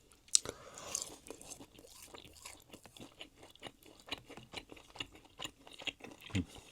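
A person biting into and chewing crispy salt and pepper chicken, a sharp crunch at the first bite followed by a run of small crunching and mouth clicks.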